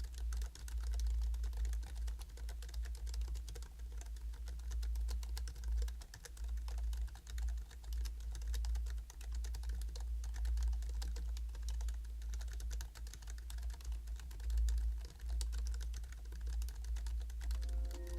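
Continuous typing on a Hansung GK698 OfficeMaster low-noise pantograph (scissor-switch) keyboard: a dense, rapid run of light key clicks with a dull low thud under the keystrokes and a few brief pauses.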